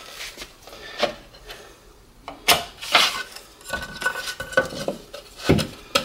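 Several sharp clicks and knocks with light metallic clinking as a tape measure and laminate boards are handled to take a measurement.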